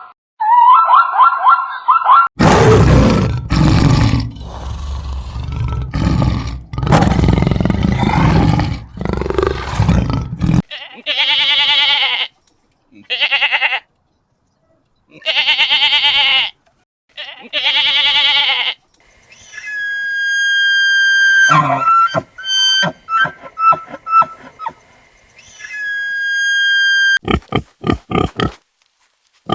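A run of different animal calls in turn: a loud, low roar lasting about eight seconds, then four high, drawn-out calls, then shorter calls and clicks.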